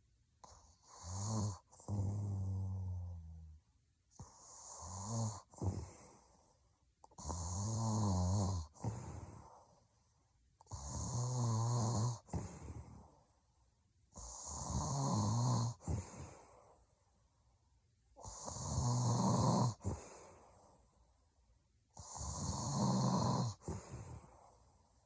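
A woman snoring heavily in her sleep: about seven snores, one every three to four seconds, each a low buzzing snore with a breathy hiss, with quiet pauses between breaths.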